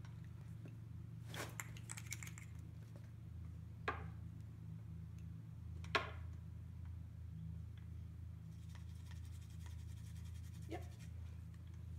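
Soft clicks and taps over a low steady hum, the loudest click about six seconds in.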